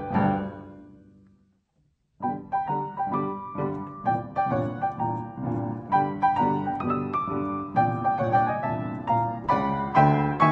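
Silent-film piano accompaniment: a phrase dies away over the first second or so, a brief silence follows, and then the piano starts again about two seconds in and plays on steadily.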